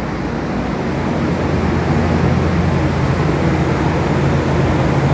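Ship's machinery running steadily on deck: a low, even hum under a rushing noise that grows a little louder about two seconds in.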